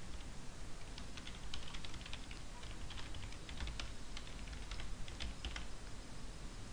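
Typing on a computer keyboard to enter login details: a quick, uneven run of key clicks lasting about five seconds, over a low steady hum.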